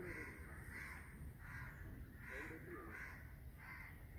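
A bird calling over and over, about six calls spaced roughly two-thirds of a second apart, over a low rumble.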